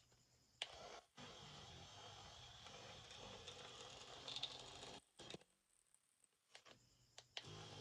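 Faint scratchy scraping of a thin metal pick working old adhesive off the edge of an Infinix Smart 8's plastic back cover. It stops about five seconds in, leaving a few light ticks.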